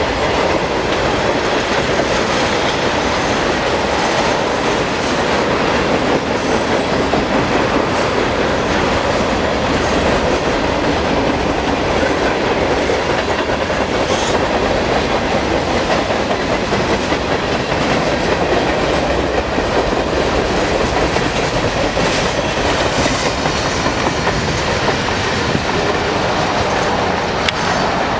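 Train cars rolling past close by: a steady, loud clatter of wheels over the rails, with a few brief faint high wheel squeals.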